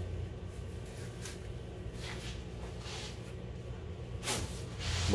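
Faint, soft rustles and taps of handling a few times, over a steady low hum.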